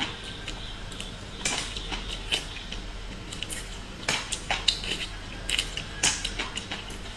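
Irregular sharp clicks of small sea-snail shells knocking against each other and against dishes as they are eaten.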